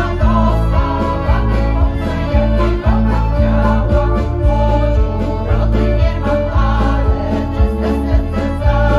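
A women's folk vocal group singing in chorus to piano accordion accompaniment, heard through a stage PA, over a steady pulsing bass beat.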